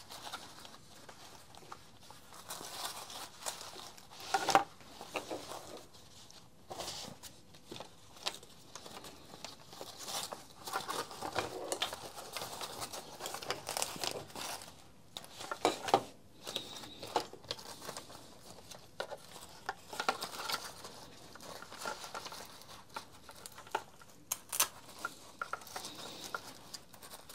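Padded nylon fabric and webbing of a Makita two-shoulder trimmer harness rustling and rubbing as it is handled, with now and then a sharper tap or click.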